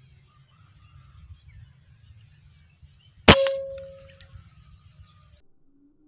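A single PCP air rifle shot about three seconds in: a sharp crack followed by a metallic ring that fades over about a second. Faint outdoor background with light high chirps and a low rumble around it, cutting off shortly before the end.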